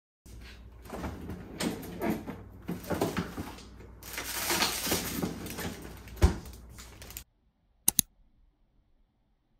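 Refrigerator freezer drawer being rummaged: plastic food packets rustling and clicking, the drawer sliding, with one sharp knock about six seconds in. The handling stops suddenly and two quick clicks follow near the end.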